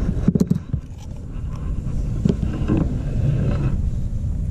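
Wind buffeting the microphone in a low, steady rumble, with a few quick knocks about half a second in.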